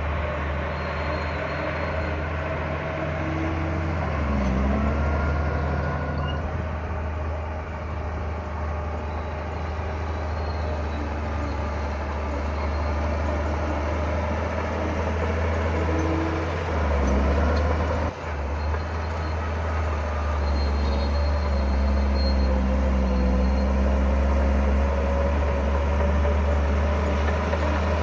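Bulldozer's diesel engine running with a continuous deep drone, its pitch and loudness shifting as it works, with a brief dip about two-thirds of the way through and somewhat louder running after it.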